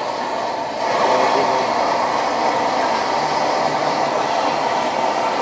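Stir-frying in a wok over a roaring gas burner: a steady rushing hiss that grows louder about a second in.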